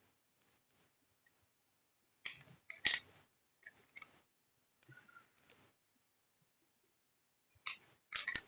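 Small plastic toy parts being handled and clicked together: scattered clusters of short clicks and light rattles, the loudest about three seconds in.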